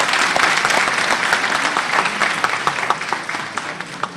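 Large audience applauding, strongest at first and thinning to scattered separate claps near the end.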